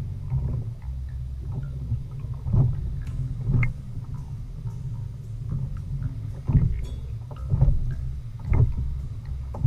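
Small waves slapping against a plastic sit-on-top kayak hull in dull thumps about once a second, over a steady low rumble of wind and water on the microphone.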